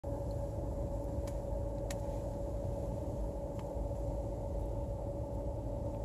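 Steady low rumble with an even hum inside a car's cabin, with a few faint ticks.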